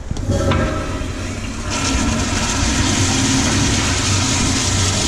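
Commercial toilet with a manually operated Sloan flushometer valve being flushed: a click as it starts, then a loud, steady rush of water that swells about a second and a half in and keeps going.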